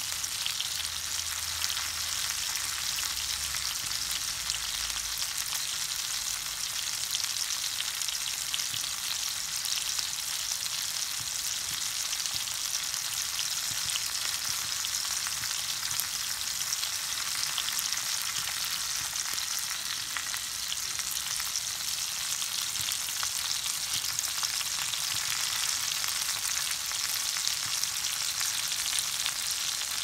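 Pieces of koi mach (climbing perch) frying in hot oil. A steady sizzle runs throughout, with constant small crackles and pops of spitting oil.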